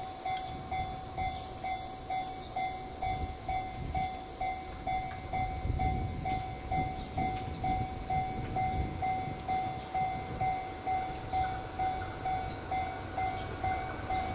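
Japanese level-crossing warning bell ringing steadily at about two strikes a second, over a train's low rumble.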